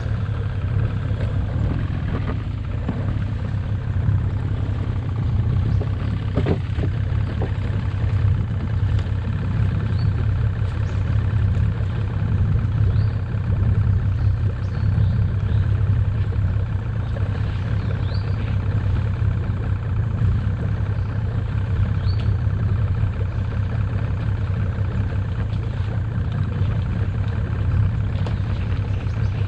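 Small boat's engine idling, a steady low hum, with a single knock about six seconds in.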